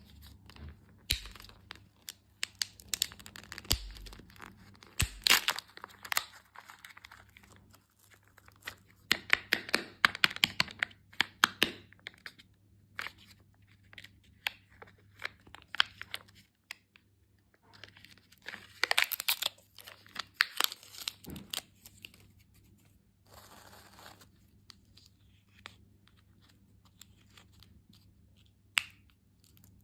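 Candy wrappers being torn open and crinkled close up, in bursts of crackling and sharp clicks with short pauses between.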